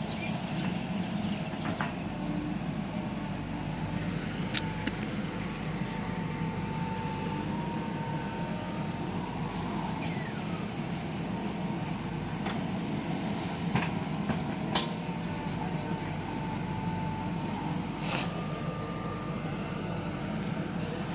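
JCB 3DX backhoe loader's diesel engine running steadily under working load, with a high steady whine coming and going in the middle stretch and several sharp metallic knocks.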